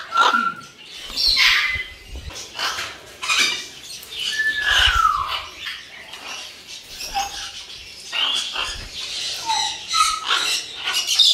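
Several parrots squawking and calling, short harsh calls following one another about every half second, a few sliding down in pitch.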